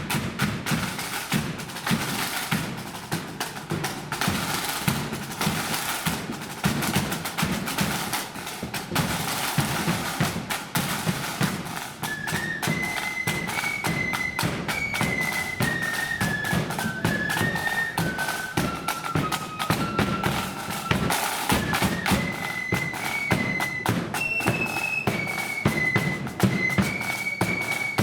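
Marching flute band: snare and bass drums beat a steady march with rolls, and about halfway through the flutes come in playing a melody together over the drums.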